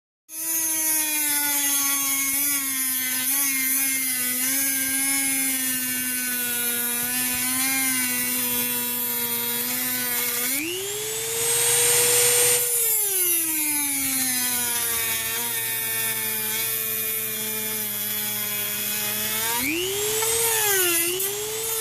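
Dremel 3000-series rotary tool with a cutting wheel whining steadily as it grinds through steel screws. Its pitch rises sharply about halfway through, holds for a couple of seconds with a hiss of grinding, then sinks back, and rises and wavers again near the end.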